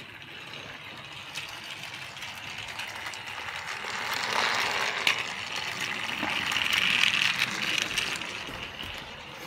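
Motorized Percy toy engine's small battery motor whirring as it runs along plastic track, with light clicking from the wheels; it grows louder about halfway through, then eases off near the end.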